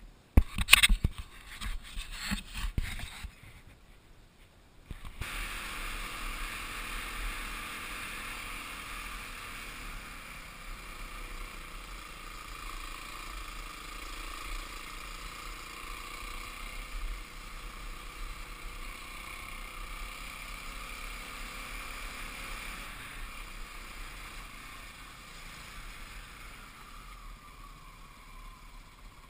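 A burst of loud knocks and rattles in the first few seconds. Then, from about five seconds in, the steady running noise of a Kawasaki KLX250 single-cylinder four-stroke dirt bike riding along a dirt track, with its engine and the rush of passing air.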